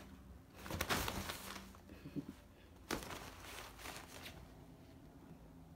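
Pop-up fabric cat tunnel rustling as a cat moves about inside it, in uneven bursts: the loudest about a second in, a sharp one about three seconds in, and more just before four seconds.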